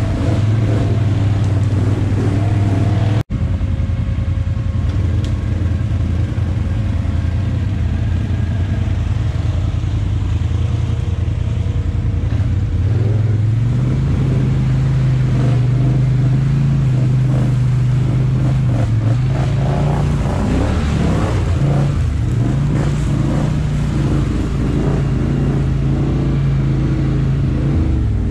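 V-twin ATV engine running hard under steady throttle while mudding. Its pitch steps up about halfway through and mostly holds, with an instant's cut in the sound about three seconds in.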